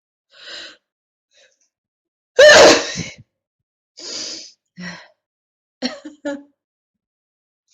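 A person sneezing once, loudly and suddenly, about two and a half seconds in, one sneeze in a sneezing fit. A short breath comes first, and a few quieter breathy sounds follow.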